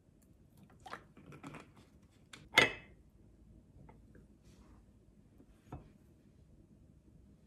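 A few light taps and clinks of a fork and tableware against a plate, the loudest about two and a half seconds in and another near six seconds.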